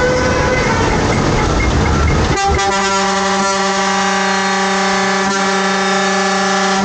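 A vehicle horn sounds one long steady blast, starting suddenly about two and a half seconds in. Before it there is a noisy rumble of vehicle and road.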